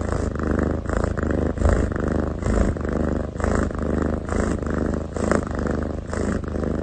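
Domestic cat purring steadily, the purr pulsing with its breathing about twice a second.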